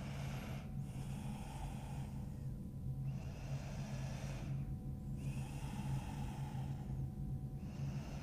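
A woman breathing slowly and deeply, about four long breaths of roughly two seconds each with short pauses between them, held in a forward-folded stretch. A steady low hum runs underneath.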